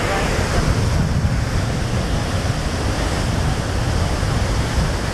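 Steady roar of a large monsoon waterfall falling into a rock gorge, with gusts of wind buffeting the microphone in an uneven low rumble.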